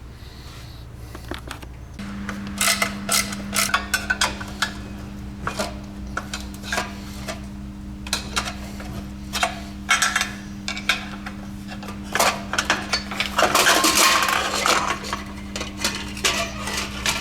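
Metal clutch parts and hand tools clinking and knocking as the clutch release assembly is taken apart, with a louder rustling scrape about thirteen seconds in. A steady low hum starts about two seconds in.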